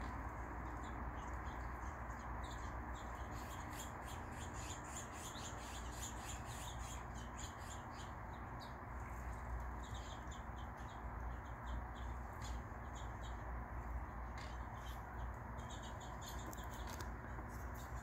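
Small songbirds chirping in quick, short, high notes, a busy run in the first half and another near the end, over a steady low background rumble.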